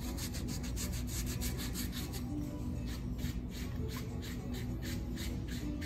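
Pedicure scrubbing: a yellow scrub pad worked back and forth over a bare foot and lower leg coated in grainy scrub, making quick, rhythmic rasping strokes several times a second.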